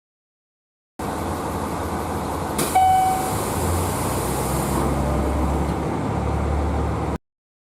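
Train door chime: a click, then one short clear beep over the steady low hum of the train's onboard equipment, with a high hiss for about two seconds after the beep and a faint second tone a little later.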